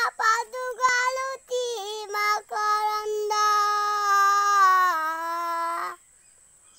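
A child singing unaccompanied: a few short phrases, then a long held note that drops in pitch and breaks off about six seconds in.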